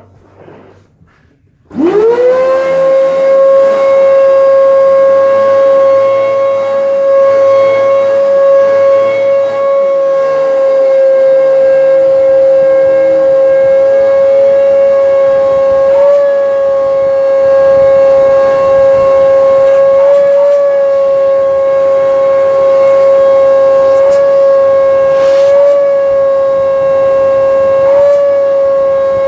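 Hoover Breeze vacuum cleaner switched on about two seconds in: its motor spins up quickly to a loud, steady whine and keeps running, with a few brief wobbles in pitch.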